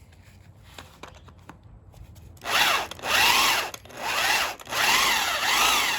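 Power drill with a cobalt bit drilling into a rounded-off engine bolt, starting about two and a half seconds in and running in four short bursts, its whine rising and falling.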